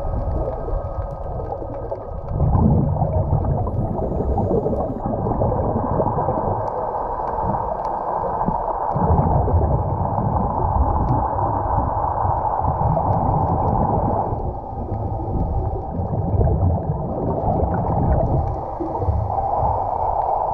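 Muffled underwater rush and low rumble picked up by a GoPro in its waterproof housing as it moves through the water. The low rumble swells and fades several times.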